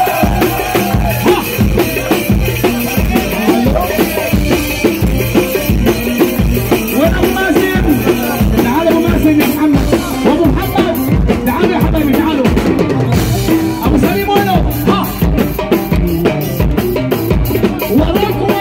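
Loud live Arabic party music: a fast drum beat under a wavering melody line, played without a break.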